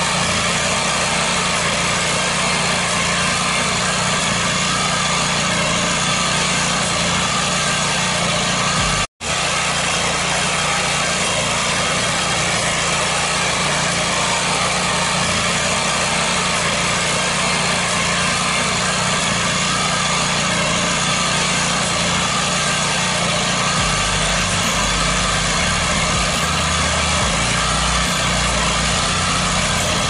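Walk-behind rice reaper's small engine running steadily as the machine cuts through standing rice, with the sound cutting out for an instant about nine seconds in.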